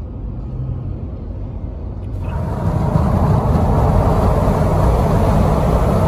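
Road rumble inside a vehicle cabin at highway speed. About two seconds in, the side window is lowered and rushing wind and tyre noise swell much louder, staying steady after.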